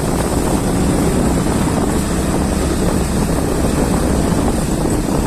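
Motorcycle running along a rough road, with steady wind rumble on the microphone.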